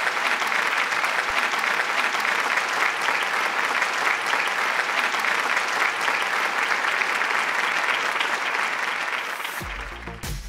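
Audience applauding steadily, a dense patter of many hands clapping that thins out near the end.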